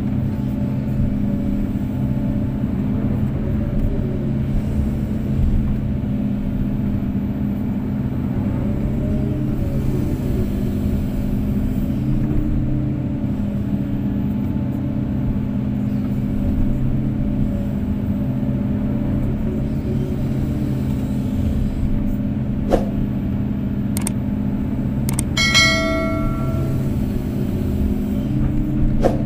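Kobelco SK250-8 excavator's diesel engine running steadily under work, with a few sharp knocks late on and a single ringing metallic clang about 25 seconds in.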